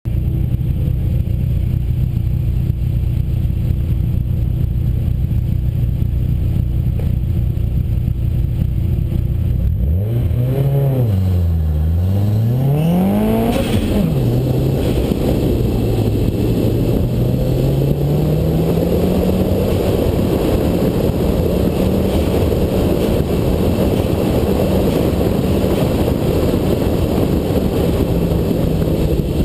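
Nissan SR20DET turbocharged four-cylinder engine of an autocross car, heard from inside the car. It runs steadily at first. About ten seconds in it revs and pulls away, its pitch dipping and then rising sharply. It then keeps rising and falling in pitch through the course, over a growing rush of wind and tyre noise.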